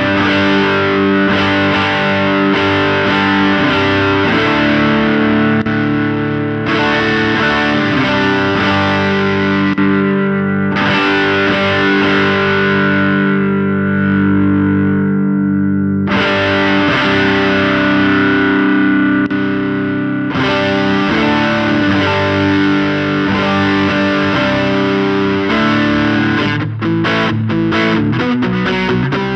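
Electric guitar played through a NUX Ace of Tone dual overdrive pedal with both sides stacked, the Morning Star boost feeding the Tube Man high-gain side, giving a heavily overdriven, open sound. Long held chords change every few seconds, and short choppy strums come near the end.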